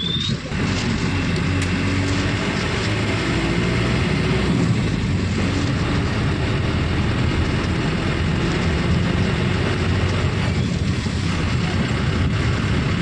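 Steady engine and road noise of a moving vehicle on a wet, flooded road, heard from inside the vehicle, with a low engine hum under an even hiss of tyres on the wet surface.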